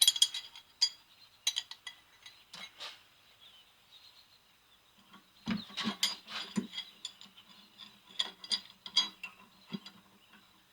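Scattered metallic clinks and knocks from a 1/4-inch threading die and a wrench being handled and set onto a steel rod. A faint low hum joins about halfway.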